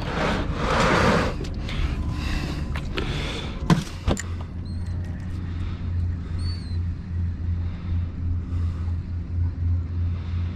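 A rushing, wind-and-water-like noise with a couple of sharp knocks about four seconds in. Then a boat's motor runs with a steady low hum, over which a few faint high chirps come and go.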